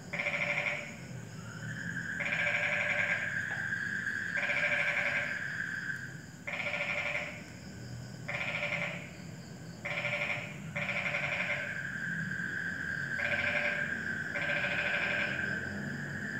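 Frogs calling: short pulsed croaks, each under a second, repeated about every one to two seconds. A steady high-pitched trill runs beneath them for several seconds at a time, twice.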